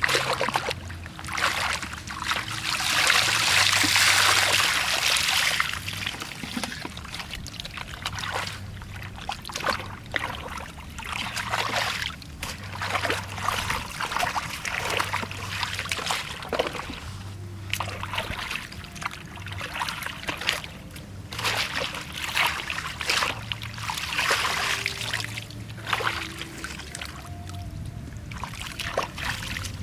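Shallow water splashing and trickling in irregular bursts as someone works through muddy water by hand, with a longer, louder rush of splashing a few seconds in.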